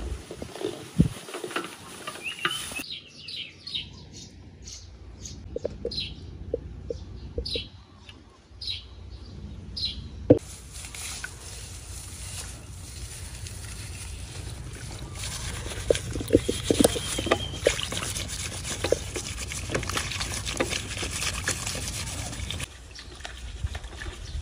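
Dry rice straw rustling and crackling and water sloshing in a metal basin as duck eggs are handled and cleaned by hand. Between about three and ten seconds in, a bird chirps in a quick series of short calls.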